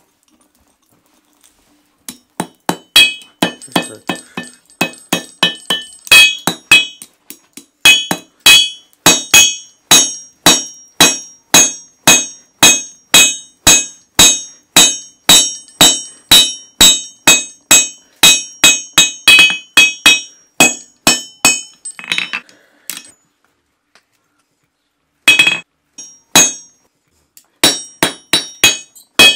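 Hand hammer forging a red-hot iron horseshoe on an anvil, striking about twice a second with a bright metallic ring on each blow. The blows begin about two seconds in, pause for a couple of seconds near the end, then resume.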